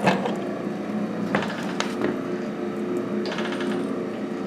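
EFM coal stoker running: a steady motor hum with scattered clicks and knocks, and a brief stretch of fast ticking about three seconds in.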